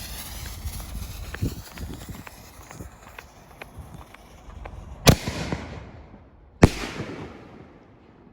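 A Brothers Pyrotechnics 4-inch Smoke N Mirrors aerial artillery shell: a dull thump about a second and a half in, then two loud sharp bangs about a second and a half apart, each trailing off in a long echo off nearby buildings.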